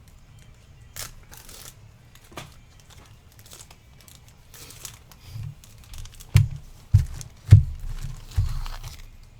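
A foil trading-card pack wrapper being torn open and crinkled by hand, with several sharp taps and knocks as the cards are handled, the loudest about seven and a half seconds in.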